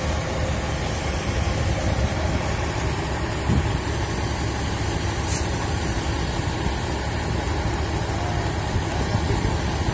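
Engine of heavy pipeline equipment running steadily at idle, a low rumble under an even hiss, with one short click about five and a half seconds in.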